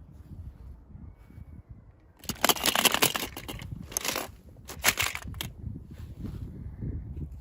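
Plastic toy packaging being opened by hand: three bursts of crinkling and crackling, the first and longest about two seconds in, over low handling rumble.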